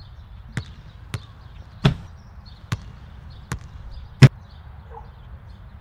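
A basketball bouncing on asphalt: six single bounces, a little under a second apart, the sixth the loudest, over a low steady background rumble.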